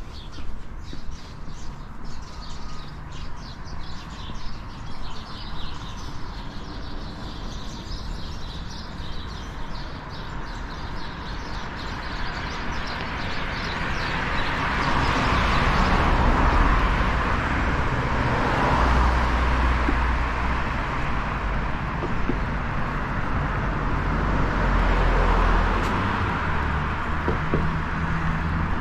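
Street ambience. Birds chirp over regular footsteps on pavement at first. From about halfway through, the engine and tyre noise of passing cars swells, fades and swells again, then eases near the end.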